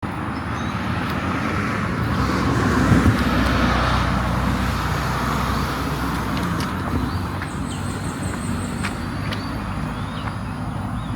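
Road traffic: a vehicle passes, swelling to its loudest about three seconds in, over a steady traffic rumble.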